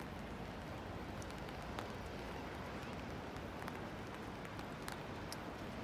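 Steady wind noise buffeting the microphone, with light rain: faint scattered ticks of raindrops.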